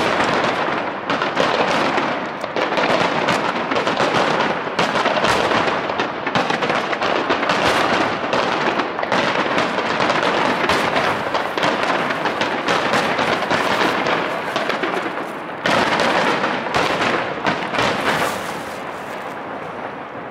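Fireworks display in a rapid-fire starmine barrage: many aerial shells bursting close together, a dense run of bangs and crackle. A sudden loud fresh volley comes about three-quarters of the way through, then the bursts thin out and fade near the end.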